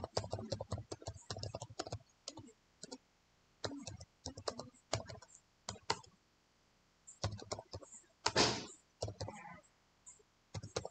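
Typing on a computer keyboard: quick irregular runs of key clicks with short pauses between them. About three quarters of the way through comes a brief, louder burst of noise.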